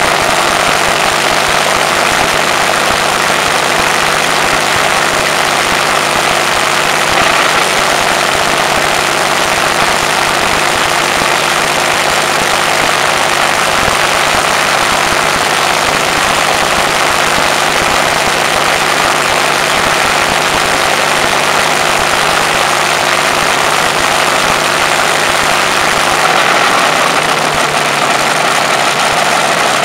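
Rolls-Royce Merlin 27-litre supercharged V12 aero engine running steadily on a static test stand, driving its propeller. Loud and even throughout.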